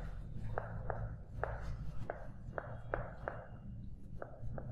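Writing on a board: irregular sharp taps and scratches, about two a second, over a low steady hum.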